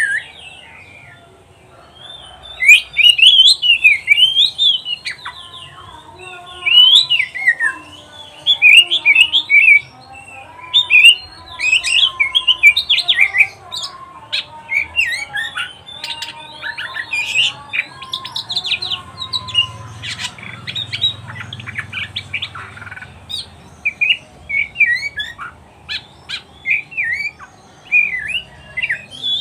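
Oriental magpie-robin singing: rapid, varied phrases of gliding whistled notes, delivered in bursts of a second or two with short pauses between.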